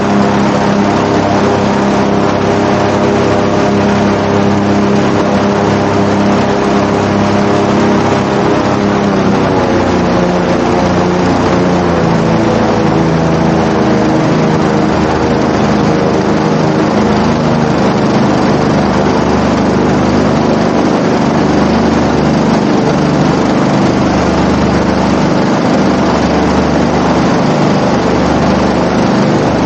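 Airboat-320 SE airboat's engine and air propeller running loud and steady, the engine pitch easing down slightly about ten seconds in and then holding.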